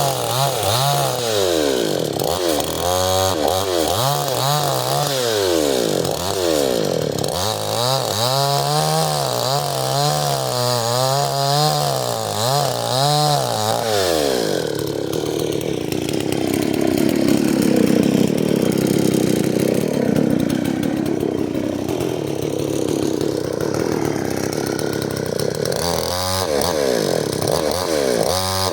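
Stihl chainsaw revving up and down repeatedly, then cutting into firewood about halfway through, its engine pitch dropping and rough under load for some twelve seconds, before it revs freely again near the end.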